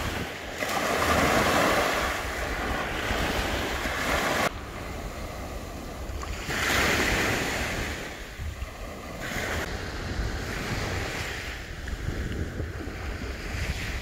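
Small waves washing up on a sandy beach and drawing back, in repeated surges, with wind rumbling on the microphone.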